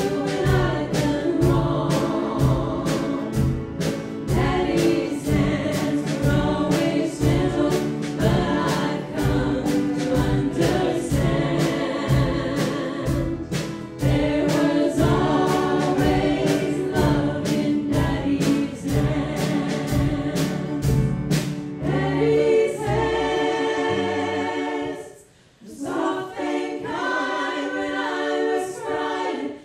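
Live country gospel music: women singing in harmony into microphones over a small acoustic band playing a steady beat. About two-thirds of the way through, the beat drops out and the voices carry on nearly unaccompanied, with a brief gap shortly after.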